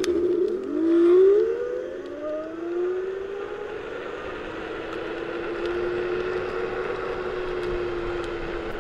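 Futecher Gun Pro's single rear electric motor whining under full throttle while climbing a steep hill from a standstill. The whine rises in pitch over the first two or three seconds as it spools up, then holds steady over a constant hiss.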